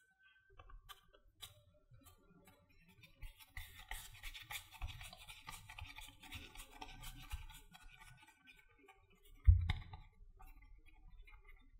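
Hands kneading and squeezing a soft mashed sweet potato and oat dough in a ceramic bowl: moist squishing and scraping with small clicks, busiest in the middle. One dull thump comes about nine and a half seconds in.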